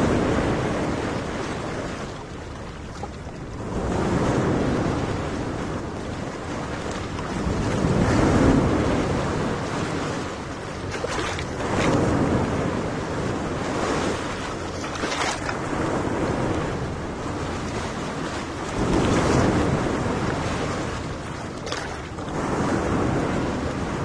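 Small waves washing onto a sandy beach, the surf swelling and easing every few seconds, with wind rumbling on the microphone.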